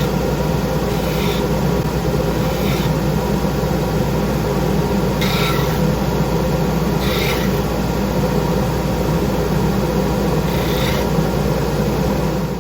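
Power drill driving a 3-inch carbide-tipped hole saw through hardwood: a steady motor run under a rasping cut, with brief sharper grating every couple of seconds.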